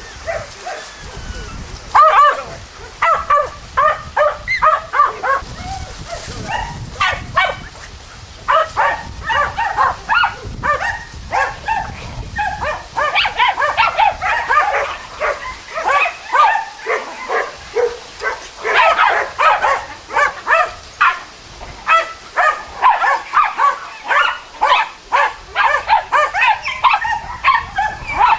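Jagdterriers barking rapidly and without let-up while baying a wild boar, the barks starting about two seconds in.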